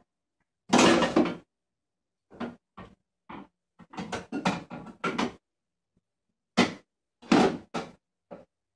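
A kitchen drawer knocking and rattling as a toddler climbs into it and bumps it about: a long clatter about a second in, a quick run of knocks a couple of seconds later, and a few more near the end.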